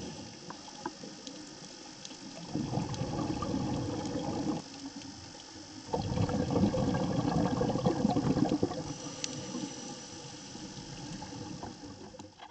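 Underwater bubbling and rushing of a scuba diver's exhaled air, heard in two longer surges with a few faint clicks in between.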